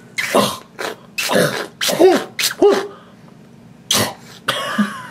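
A person making mock retching and gagging noises, acting out a toy doll being sick. It comes as a series of short throaty heaves about half a second apart, ending in two breathier bursts near the end.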